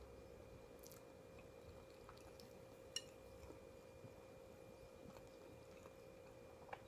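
Faint, quiet chewing with small wet mouth clicks, the sharpest about three seconds in, over a steady faint electrical hum.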